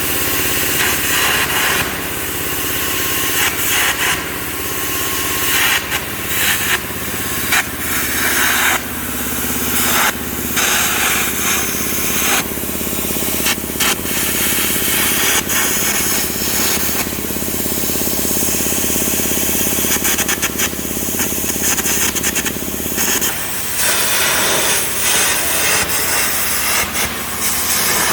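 Steel being cut back on a hydraulic breaker housing: a loud, continuous hissing, rasping noise with uneven surges, over a steady machine hum that drops away about three-quarters of the way through. This is the removal of old weld seams and cracks ahead of rewelding.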